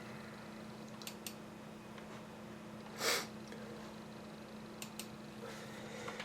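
A single short, sharp breath forced through the nose about three seconds in, over a steady low hum, with a few faint clicks.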